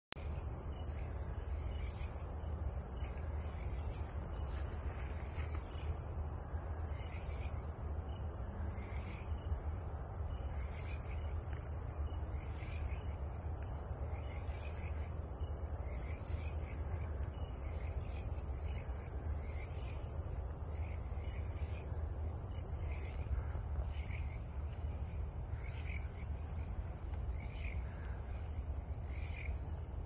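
Chorus of crickets and other insects: a steady high-pitched trill, with shorter chirps repeating about once a second, over a low steady rumble.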